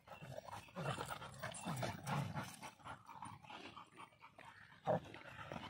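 A Rottweiler and two Labrador retrievers making quiet, irregular low vocal sounds as they jostle and sniff each other, with one short, louder sound about five seconds in.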